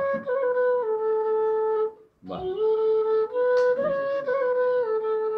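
Bass bansuri (Indian bamboo transverse flute) in A, played in held notes that step up and down with small ornaments, with a short breath pause about two seconds in.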